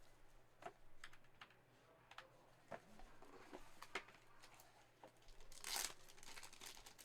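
Faint tearing and crinkling of a sealed trading-card box's wrapping as it is opened, with light clicks of handling and a longer tearing rustle about five and a half seconds in.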